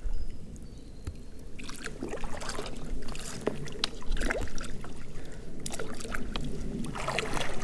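Shallow creek water rippling and lapping around rocks, with small splashes and scattered ticks.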